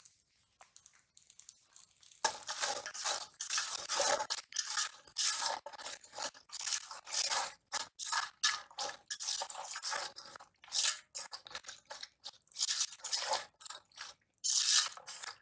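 A hand mixing raw prawns with spice pastes, green chillies and oil in a stainless steel bowl: irregular wet squelching and scraping, starting about two seconds in.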